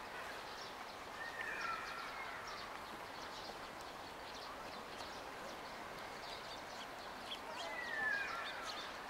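Bird calls over steady outdoor background noise: one drawn-out, slurred call about a second and a half in and a louder one near the end. Faint crunching of footsteps on gravel runs underneath.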